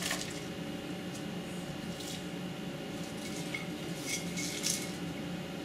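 Soft rustling and handling of cabbage leaves being pushed into a blender jar and picked off a plate, a few brief crinkles about two seconds in and again around four to five seconds in, over a steady faint room hum.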